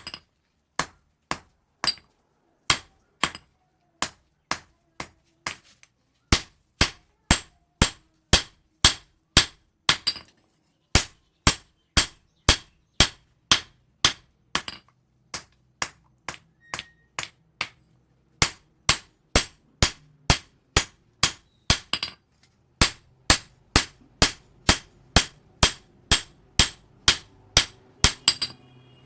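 Hammer blows ringing on steel at a steady pace of about two a second, with two short pauses: forging an old leaf spring into a knife blade.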